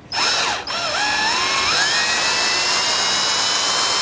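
Electric drill turning an easy out screw extractor to back out a broken brass screw. The motor starts, cuts out briefly about half a second in, then spins back up with a rising whine and runs steadily.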